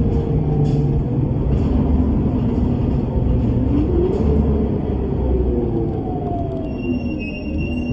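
Bus engine and drivetrain rumbling, the engine's pitch rising and falling as the bus speeds up and slows, with faint ticks about once a second. About seven seconds in, a steady high electronic tone starts.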